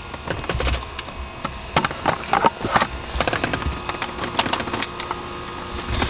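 Scattered light clicks and knocks of hands handling the plastic steering column cover under a car's dashboard, irregular and uneven in strength.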